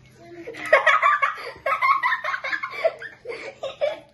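Children laughing hard in quick repeated bursts of 'ha-ha-ha', starting about half a second in and dying away just before the end.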